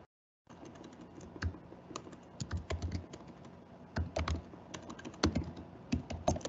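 Irregular clicking of computer keys, typing in quick uneven runs. The sound cuts out completely for about half a second at the start.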